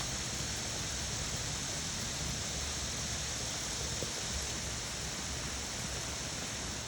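Steady rain falling, an even hiss without separate drops or other sounds.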